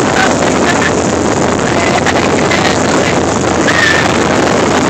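Wind rushing over the phone's microphone on a motorboat under way: a steady, loud rush with the boat's running noise blended in.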